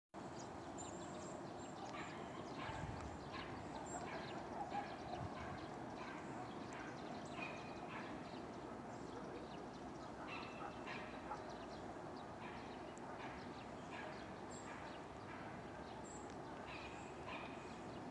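Birds chirping with short scattered calls over a steady, faint background hiss.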